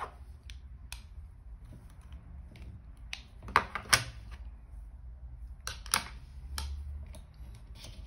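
A plastic eyeglass frame and its broken hinge piece being handled on a workbench: scattered light clicks and taps, the loudest two close together about halfway through and another about six seconds in, over a low steady hum.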